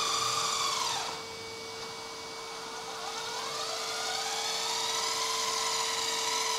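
Electric hydraulic pump and brushed slewing motor of a 1/14-scale LESU RC hydraulic excavator whining as the upper body swings round. The whine's pitch falls away about a second in, climbs back from about three seconds and holds, then drops near the end, over a steady hum.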